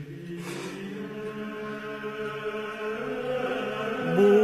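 Background music of sustained, chant-like drones that build slowly in volume, with a louder held, slightly wavering note coming in near the end.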